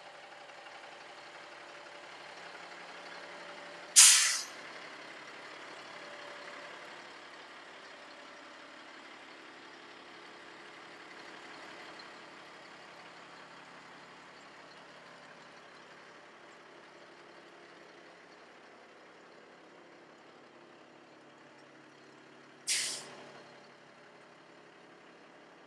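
Two sharp hisses of compressed air venting from the Stewart & Stevenson M1078A1 LMTV's air brake system, each about half a second long and fading out. The first, about four seconds in, is much louder than the second, which comes near the end. Under them the truck's Cat 3126 turbo-diesel engine idles steadily.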